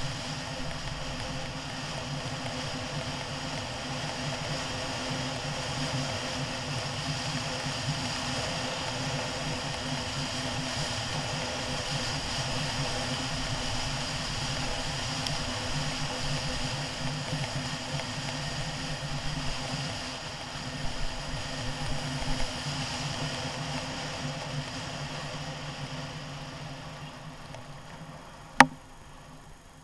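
Large scooter's engine running steadily on the move, with wind and road noise. The sound eases off near the end, and one sharp click stands out just before it goes quiet.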